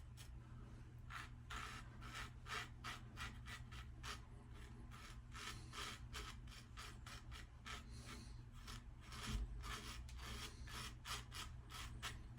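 Single-edge lather-catcher safety razor with a GEM-style blade cutting lathered stubble: a steady run of short scraping strokes, about three or four a second.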